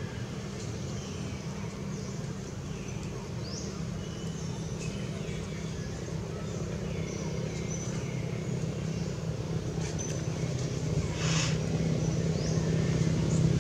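A steady engine hum that grows gradually louder toward the end, with short high chirps scattered over it.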